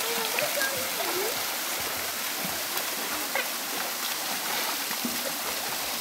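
Steady rush of river water and a waterfall, with children splashing as they wade through the pool, and faint voices in the first second.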